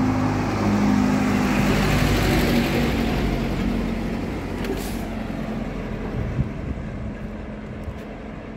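Motor vehicle engine running with a steady low hum, growing fainter over the seconds.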